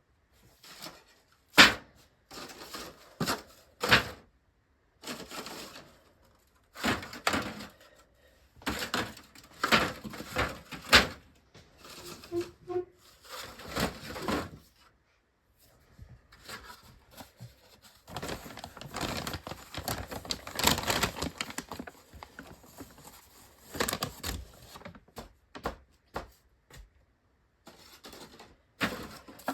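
Irregular close-up clicks, taps and rustling, with sharper knocks about 1.5 and 4 seconds in and a busier run of rustling and tapping midway through.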